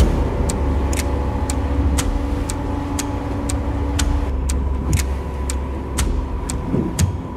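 Escort boat's engine running, heard from inside the wheelhouse as a steady low drone, with a sharp tick repeating evenly about twice a second.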